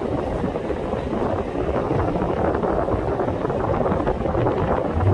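Wind buffeting a smartphone microphone aboard a moving double-decker heritage tram, over the tram's steady running noise.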